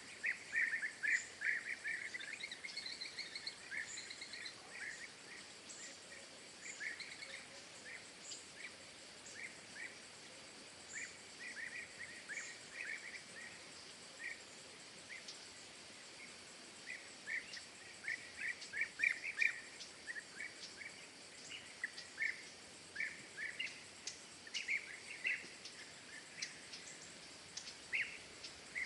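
Small birds chirping in bunches of short, quick chirps, with pauses between the bunches and a faint steady high hiss underneath.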